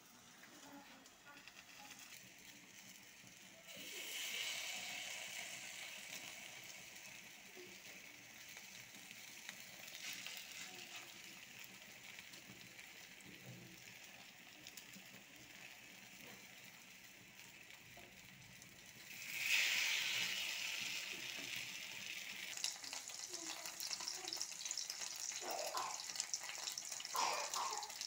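Eggplant slices sizzling as they fry in oil in a pan. The sizzle swells sharply about four seconds in and again, louder, near the two-thirds mark.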